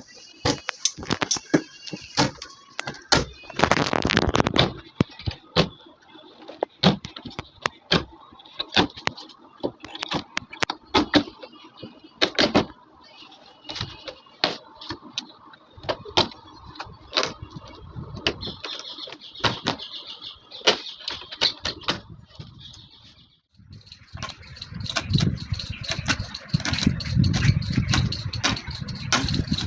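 Irregular sharp clicks and knocks of upholstery work on a sofa. A steady low hum with a faint high whine joins about 24 seconds in.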